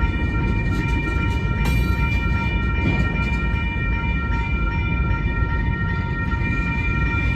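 Freight train's covered hopper cars rolling past: a steady rumble of steel wheels on the rails, with several steady high-pitched tones held over it.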